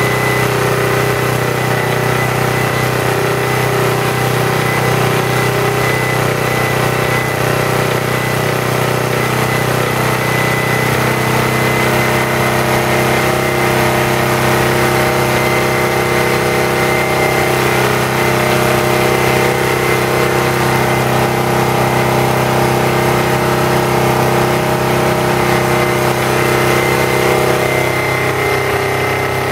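Briggs & Stratton model NP single-cylinder engine running steadily, driving a Farmaster 600-watt generator.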